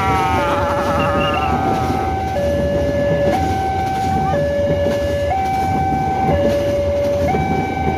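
Level-crossing warning alarm sounding two tones, high and low, alternating about once a second, over the rumble of a passenger train's coaches rolling past.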